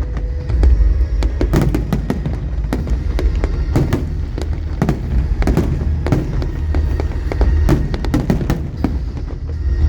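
Fireworks display: aerial shells bursting in quick succession, an irregular run of sharp bangs several a second over a steady low rumble.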